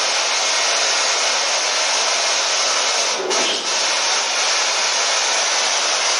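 Loud, steady hiss of radio static from a ghost-hunting spirit box sweeping through stations, briefly breaking up about three seconds in.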